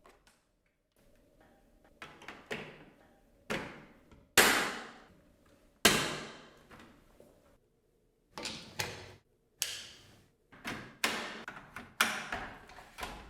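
Hard plastic parts of a Dyson V10 docking station being pushed and clicked together: about a dozen sharp snaps and knocks at uneven intervals, each dying away quickly.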